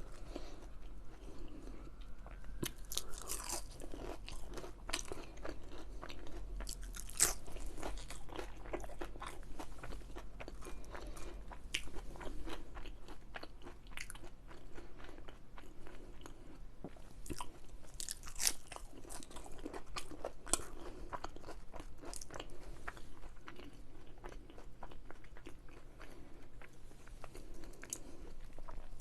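Close-miked chewing and biting of crispy onion rings: a steady stream of crunches and crackles, with a few louder bites.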